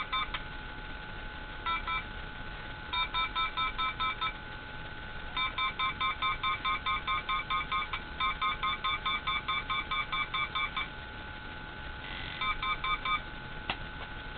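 Handheld RF detector beeping as it picks up a signal, in rapid trains of about five or six beeps a second. The beeps come in several short bursts with a long run in the middle, over a steady high electronic whine.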